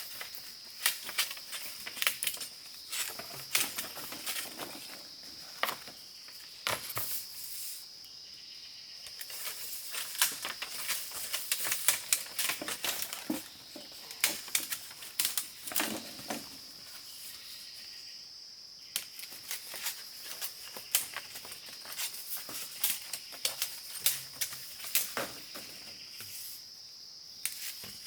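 A steady high-pitched insect drone, with irregular sharp clicks and short rustles of something being handled close by.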